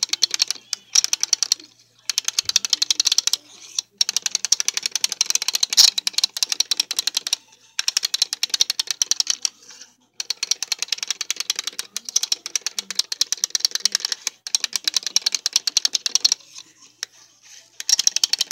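Small plastic squirrel toy clicking rapidly and evenly, a fast rattle in bursts of one to two seconds with short pauses between them.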